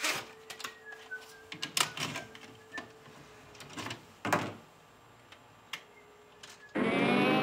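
Scattered light clicks and knocks in a small room over a faint steady hum. Near the end, a loud buzzing sound with many tones cuts in abruptly.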